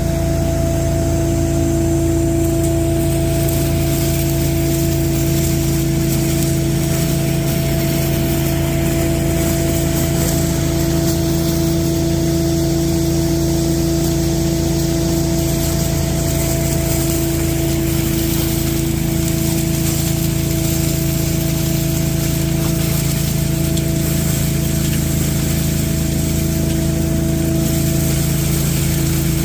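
Industrial debris vacuum's 35 horsepower engine and blower running steadily, loud, at a constant pitch.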